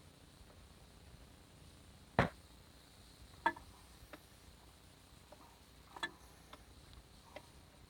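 A handful of scattered, irregular clicks and knocks, the loudest about two seconds in, with no engine running.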